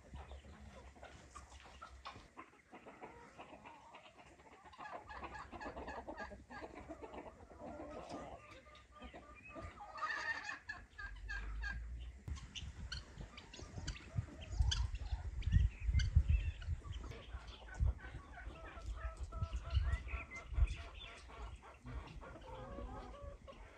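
Chickens clucking on and off. A stretch of loud, low rumbling comes in through the middle.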